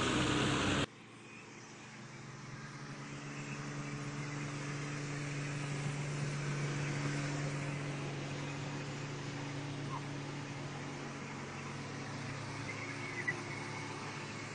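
Heavy diesel truck engine running hard under load, a steady drone that builds over several seconds and then eases a little. It comes in after a louder sound cuts off abruptly about a second in.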